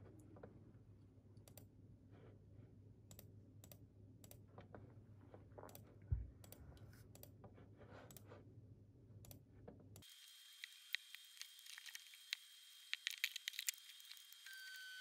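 Computer keyboard typing: key clicks, densest about two-thirds of the way in. Before that, a quiet room with scattered small clicks and one low knock near the middle.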